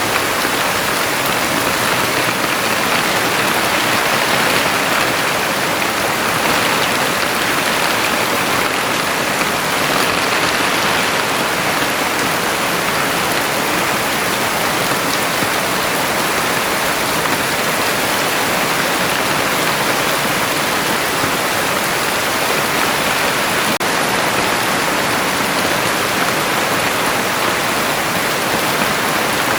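Heavy rain falling steadily in an even, unbroken hiss.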